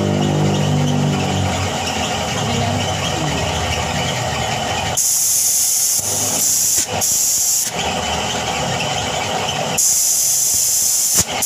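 Compressed air hissing in two bursts, about five and ten seconds in, each lasting one to three seconds, as air is fed into a soldered copper radiator tank for a soap-bubble leak test. A low motor hum fades out in the first couple of seconds.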